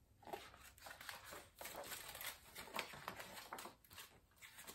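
Faint rustling and crinkling of a hardcover picture book being opened and its pages handled, with small irregular paper and cover noises.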